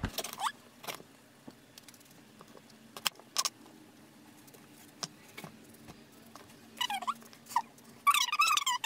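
Knife slicing eggplant on a chopping board: a few sharp knocks a second or two apart over a faint steady hum. Near the end, a run of short, falling chirping calls.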